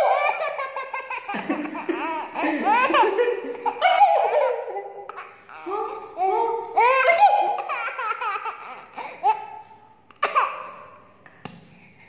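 A baby laughing in repeated bursts of high-pitched belly laughs that rise and fall in pitch, dying down near the end.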